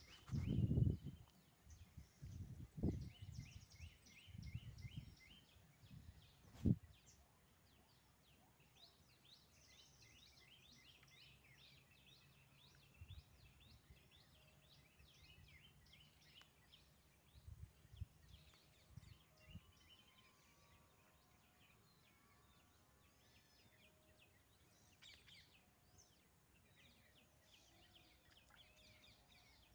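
Quiet outdoor ambience with small birds chirping in rapid, repeated high notes. A few low bumps come in the first five seconds, and one sharp click about seven seconds in.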